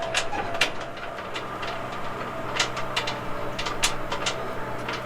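Vehicle engine running steadily while driving over rough field ground, with frequent sharp rattles and clanks from the body.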